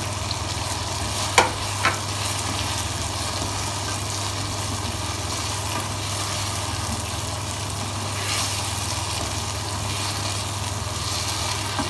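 Chicken masala sizzling in a nonstick pan as cubes of taro (arvi) are stirred into it with a spatula, with two sharp knocks between one and two seconds in. A steady low hum runs underneath.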